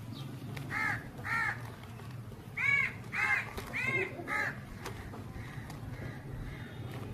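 A crow cawing: two short caws about a second in, then a run of four more a little later.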